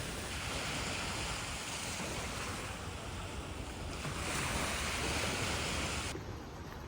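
Ocean surf washing in, a steady rush of water that swells twice, with some wind. It cuts off suddenly about six seconds in.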